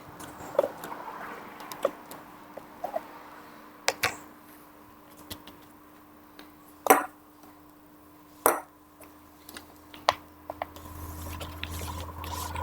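Clicks and knocks from an animatronic toy dolphin, with three louder sharp knocks spread through the stretch, a few short faint blips, and a faint steady hum underneath.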